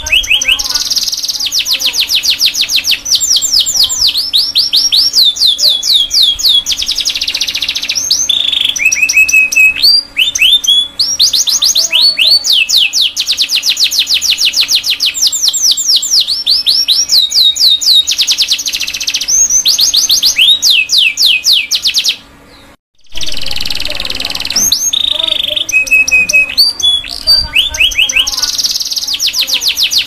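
Domestic canary singing: long runs of rapid trills, each a fast string of repeated sweeping notes, changing from one trill to the next with short pauses. About two-thirds of the way through the song drops out for under a second before going on.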